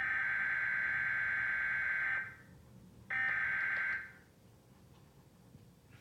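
Emergency Alert System SAME header data bursts played through a TV speaker: a buzzing electronic screech of about two seconds, a short pause, then a second burst of about a second. This coded header opens an EAS warning message.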